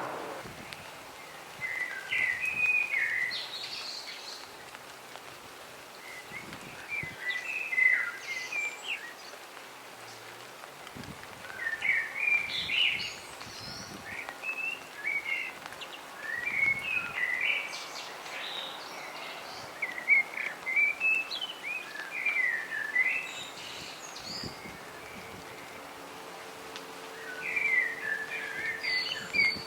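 A songbird singing in short, repeated chirping phrases with pauses of a second or more between them, over a steady background hiss.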